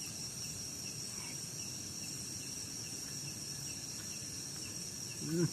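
Chorus of night insects: a steady high-pitched buzz with faint repeated chirps under it. A short vocal sound comes right at the end.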